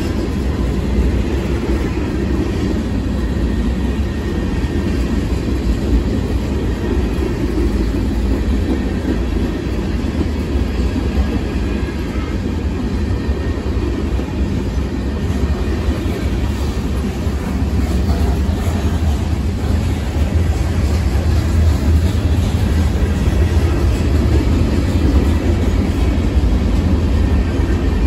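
A train's railroad cars rolling along the track: a steady, loud rumble of wheels on rails that grows a little louder past the halfway point.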